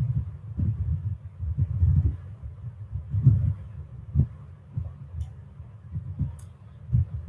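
A man picking up a glass and drinking water close to the microphone: irregular low, dull thumps and rumbles, about one or two a second.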